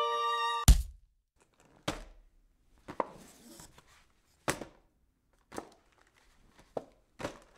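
A cat rummaging inside a wrapped cardboard gift box: a loud thump under a second in, then irregular knocks and a brief rustle about three seconds in.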